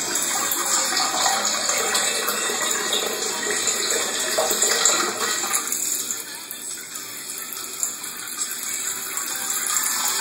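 Water running steadily from a bathroom tap, a little quieter after about six seconds.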